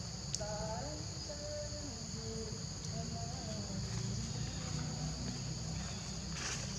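Steady, high-pitched drone of insects such as crickets or cicadas.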